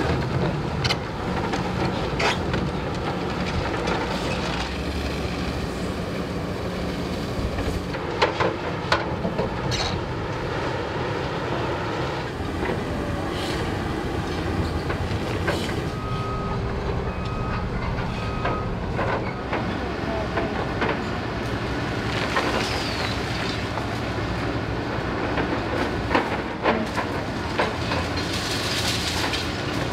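Demolition site sound: heavy machinery diesel engines running steadily, with scattered metallic clanks and knocks, and a few short beeps near the middle.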